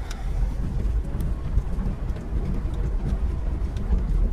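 A vehicle drives slowly over a rocky dirt track, heard from inside the cabin. There is a continuous low rumble of engine and tyres, with gravel crunching and small rattles over it.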